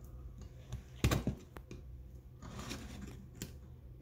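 Small metal parts of a starter's Bendix drive being handled and fitted: a sharp click about a second in, then faint scraping and a lighter click.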